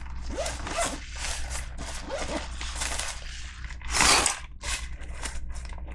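Rustling and crinkling of a nylon first aid kit bag and the plastic-wrapped packets inside as hands open and handle it, in a string of short rustles with a louder one about four seconds in.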